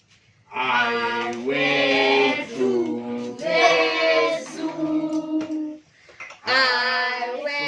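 Children and women singing a birthday song together in long held notes, with a short break about six seconds in before the singing picks up again.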